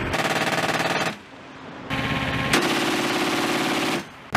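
Rapid machine-gun fire in two bursts, the first about a second long and the second about two seconds long, with a short pause between: the Avenger air-defence turret's .50-calibre machine gun firing.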